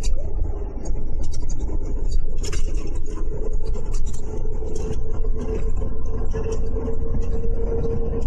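Inside a moving coach bus: a steady low engine and road rumble with a steady whine-like hum that grows a little stronger near the end, and light rattling.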